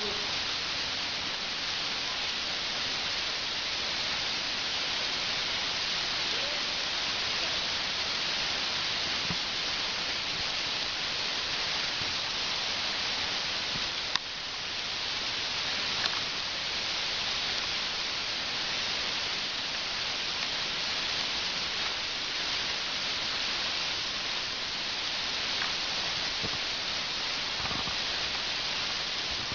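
Steady rush of falling water from a waterfall, an even hiss, with two brief clicks about halfway through.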